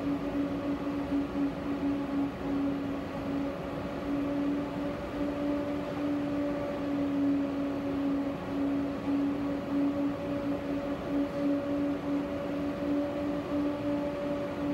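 Tram running between stops, heard from inside the car: a steady rumble of wheels on rails with a steady hum at one pitch.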